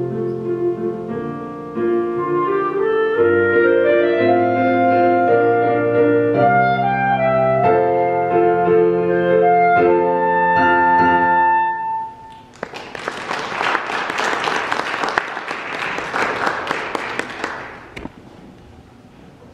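Clarinet playing a slow melody with piano accompaniment, ending on a long held note about twelve seconds in. Then about five seconds of applause.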